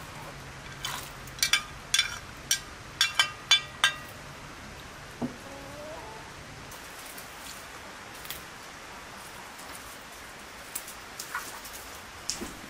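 A quick run of about ten sharp knocks, each with a short ringing, over roughly three seconds, then a brief call rising in pitch about five seconds in.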